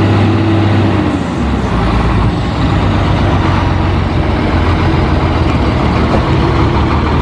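Truck engine running with a steady low rumble and hum, growing rougher after about a second and a half.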